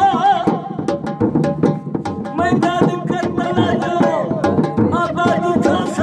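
An elderly man singing folk melody in a wavering, ornamented voice over fast, steady dhol drum strokes, with a short break in the singing about a second in.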